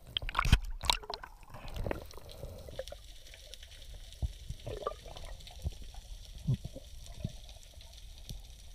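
Underwater sound on a free dive, heard through the camera housing: knocks and bubbly gurgles in the first couple of seconds, then a steady hiss with scattered small pops and crackles as the diver nears the reef.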